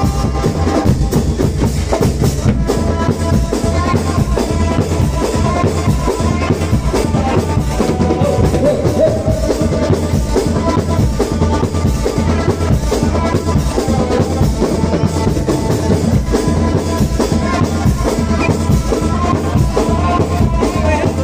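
Marching drum band playing: bass drums and snare drums beating a steady, driving rhythm, with a sustained melody line over the drums.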